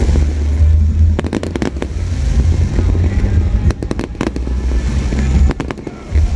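Fireworks going off in quick clusters of sharp bangs and crackles, about a second in and again around four seconds, over a steady deep rumble.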